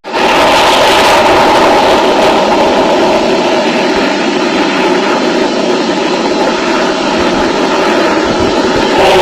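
A loud, steady roaring noise that cuts in abruptly and holds without change.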